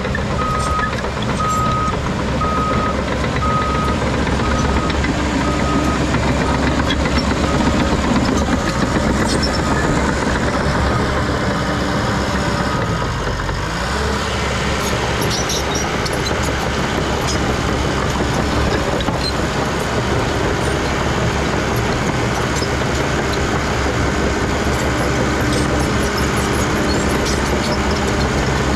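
CAT D3 Next Gen crawler dozer's diesel engine running steadily under load as it pushes dirt. A backup alarm beeps at an even pace for the first dozen seconds or so.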